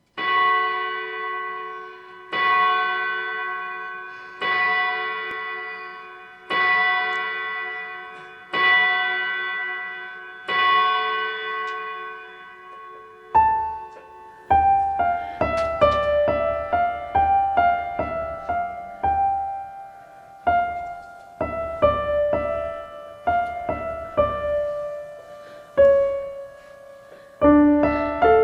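Keyboard intro to a song with no singing yet. A bell-like chord is struck six times about two seconds apart, each time ringing and fading away. About 13 seconds in, a bass part and a faster moving melody come in.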